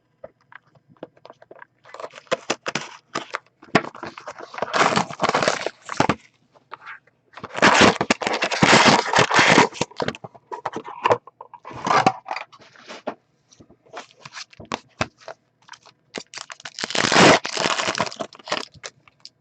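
A hobby box of trading cards being opened and its foil card packs torn open by hand: bursts of wrapper crinkling and tearing between lighter clicks and rustles of cardboard and cards being handled.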